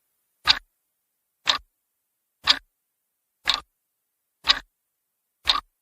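Clock ticking once a second, six ticks, used as a quiz countdown timer sound effect.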